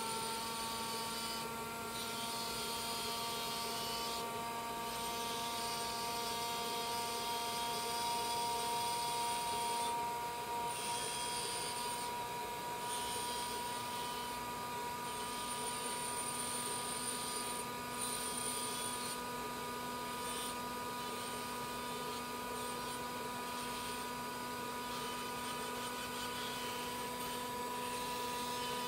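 Dental laboratory micromotor handpiece running at a steady high whine, its bur grinding a gypsum stone study model with a scratchy hiss that breaks off briefly several times.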